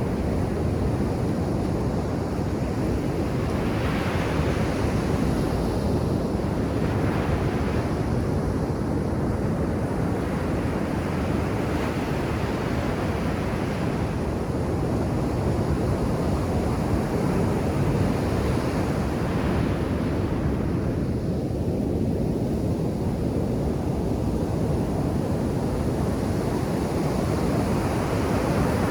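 Ocean surf breaking on a beach: a steady wash of waves, with several surges where a wave breaks more sharply, and some wind rumbling on the microphone.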